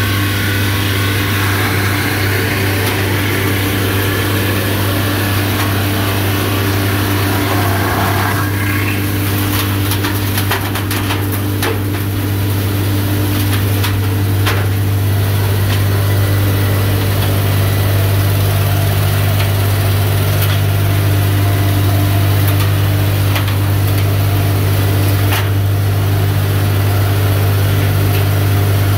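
Hamech DF140 round-pole milling machine running under load: a steady low motor hum with the cutter head spinning as square timber is fed through and milled round. A rougher, rasping cutting noise sits on top for about the first eight seconds, with a few sharp ticks a little later.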